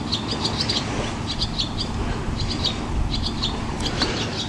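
Small bird chirping repeatedly in short, high twittering notes, over a steady background hiss.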